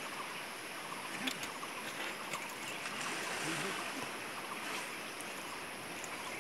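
Steady rush of running water, swelling slightly about halfway through, with a few faint clicks.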